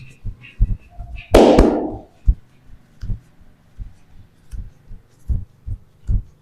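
Chiropractic adjustment: a series of soft, low thumps, roughly two a second and unevenly spaced, with one loud, sudden noisy burst about a second and a half in that fades over about half a second.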